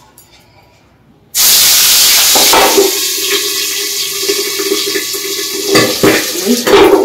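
Oily fish going into hot oil in a kadai: a sudden loud sizzle breaks out about a second in and carries on as steady frying with spitting oil.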